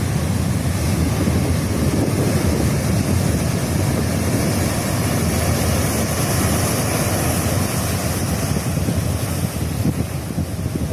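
Rough sea surf breaking and washing on a beach, a steady rush with wind rumbling on the microphone.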